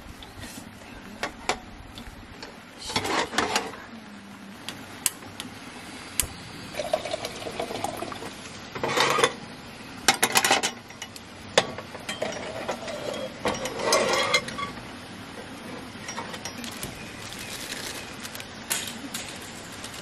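Metal camp cookware and a gas canister stove being handled on a table: clinks, knocks and rattles, with several louder noisy bursts a few seconds apart.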